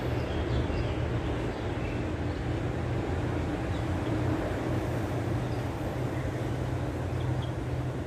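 Steady low mechanical hum over an even wash of outdoor background noise, with a few faint high bird chirps.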